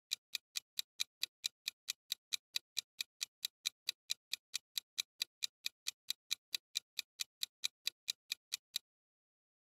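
Quiz countdown timer sound effect: a fast, even clock tick, about four to five sharp, high ticks a second, that stops shortly before the end.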